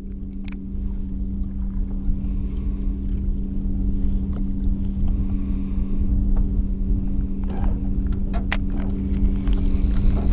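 Boat motor running steadily with an even hum, and a few sharp clicks over it.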